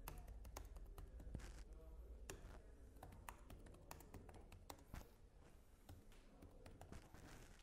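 Faint, irregular typing and key clicks on a laptop keyboard.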